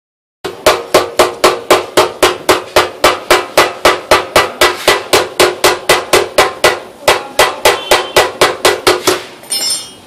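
A hammer striking a steel motorcycle fuel tank in a steady, rapid run of blows, about four a second, each with a metallic ring. The blows stop near the end, followed by a short high-pitched metallic sound.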